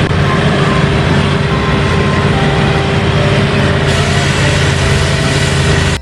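Mobile crane truck's engine running steadily, a continuous heavy mechanical drone.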